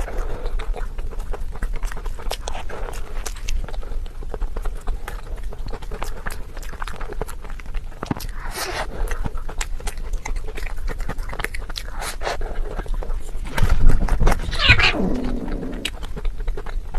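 Fast, irregular crunching and clicking of someone chewing food, with two short falling vocal sounds, one about halfway through and one near the end.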